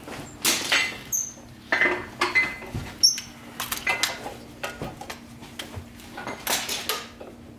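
Metal parts and hardware clinking and rattling in irregular bursts, with a few short high squeaks in between.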